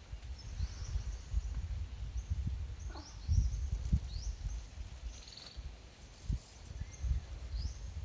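Birds repeating short, high, falling chirps over an uneven low rumble on the microphone, the rumble being the loudest part throughout.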